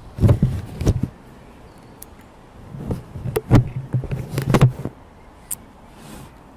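Handling noise on a Zoom H2n handheld recorder as a foam windscreen is fitted over its microphones: rubbing and knocks right against the mic in two bouts, in the first second and again from about three to five seconds in.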